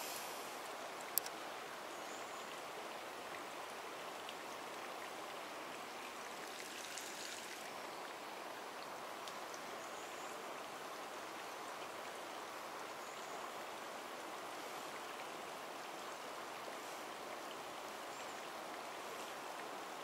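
Steady, faint rush of flowing river water, with a single sharp click about a second in.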